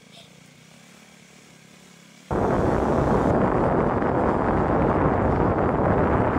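A faint steady background hum, then about two seconds in an abrupt jump to a loud, steady rushing noise with no engine note standing out: wind buffeting the microphone on a vehicle moving along a road.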